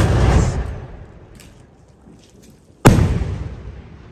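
Aerial firework shell: a loud bang as it fires, then a second loud bang about three seconds later as it bursts overhead. Each bang trails off in a long rolling echo.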